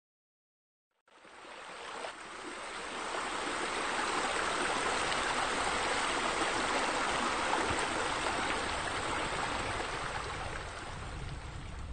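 Steady rush of flowing, splashing water from garden fountains, fading in about a second in and easing slightly near the end.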